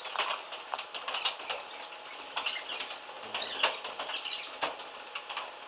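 Quick, irregular scuffs and squeaks of a small hand mop rubbed along gym bleacher seats, along with shoes scuffing on the bleacher boards.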